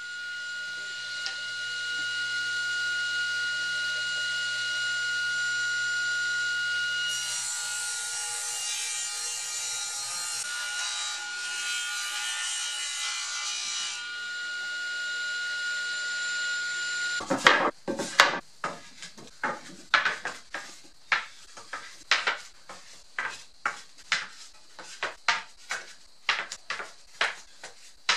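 Table saw running steadily and ripping cedar boards, the blade cutting loudest for several seconds in the middle of the run. The saw sound then stops abruptly and a string of sharp wooden clacks follows, about one or two a second, as cut cedar boards knock against each other while being handled and stacked.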